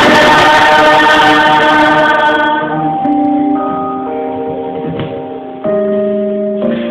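Christian worship music: voices and instruments holding sustained chords. It thins and softens about two and a half seconds in, and a new held chord swells in near the end.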